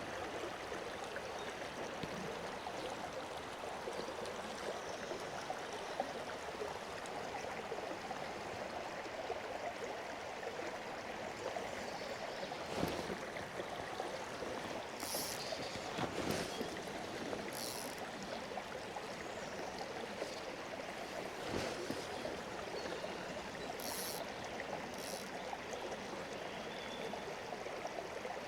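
Fast-flowing river water rushing steadily, with a few sharp clicks and brief high-pitched sounds over it.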